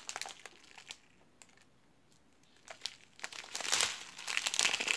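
Strip of plastic bags of diamond painting drills crinkling as it is handled: a flurry of crackles at first, a lull of about two seconds, then crinkling again from about three seconds in, loudest near the end.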